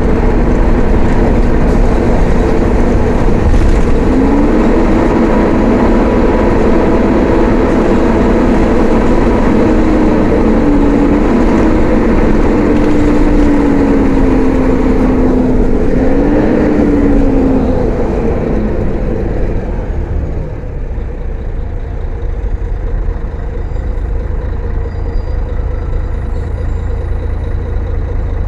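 Mercedes-Benz O500-UA articulated bus with ZF automatic gearbox running under way, with a whining tone that rises about four seconds in and wavers up and down. About eighteen seconds in the whine falls away and the engine eases off, running quieter to the end.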